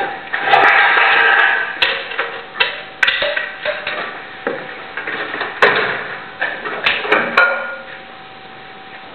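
Metal clanks and knocks from exhaust pipe sections and tools being handled and fitted under a car: a string of sharp, ringing strikes, with a loud harsh noise lasting about a second and a half near the start.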